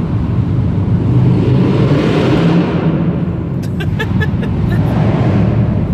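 Car cabin road noise while driving through a road tunnel: a steady rumble of tyres and engine that swells about two seconds in and again near the end. A few short high-pitched chirps come around four seconds in.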